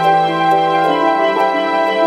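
Gentle background music: slowly changing held chords over a light tick about twice a second.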